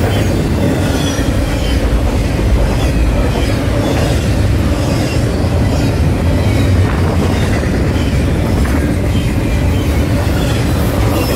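Double-stack intermodal well cars of a CN freight train rolling past close by: a steady, loud rumble of steel wheels on rail with repeated clacks over the rail joints.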